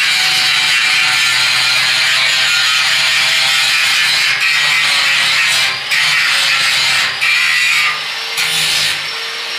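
Angle grinder working on the steel stair railing: a steady high hiss of the disc on metal over the motor's hum, letting up briefly a few times and running quieter over the last couple of seconds.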